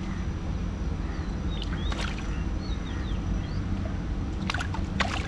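Water sloshing and splashing, with sharp splashes about two seconds in and twice near the end, over a steady low rumble.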